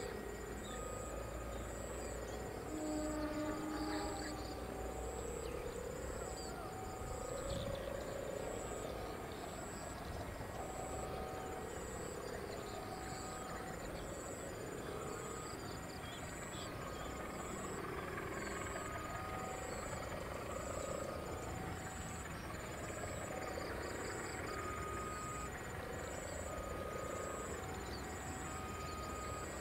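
Railway level-crossing warning signal sounding over and over, two fixed tones repeating every second or two. Frogs and insects call steadily underneath.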